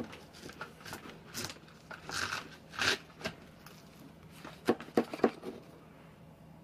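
Kitchen knife crunching through a whole pineapple's tough rind and fibrous flesh in several cutting strokes, then three quick knocks on the plastic cutting board about five seconds in.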